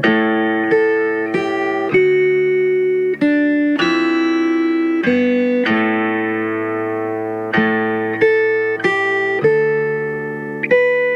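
Background music: a slow melody of single plucked notes, each struck sharply and left to ring out, a new note every half second to a second.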